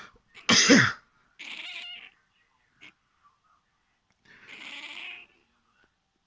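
A person sneezes once, loudly, near the start, and a domestic cat answers with two short grumbling meows, a second and about four seconds later, complaining at the sneeze.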